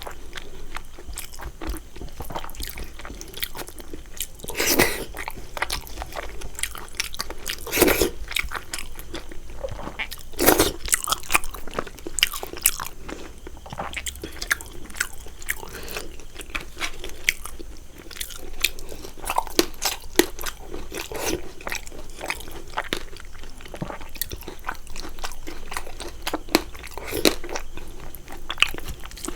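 Close-miked eating sounds: steady chewing and biting with crunching, and a few louder bites about 5, 8 and 10 seconds in.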